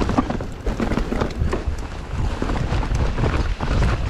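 Mountain bike descending a rocky trail: the tyres crunch over rocks and the bike rattles and knocks irregularly, with a steady low rumble of wind on the microphone.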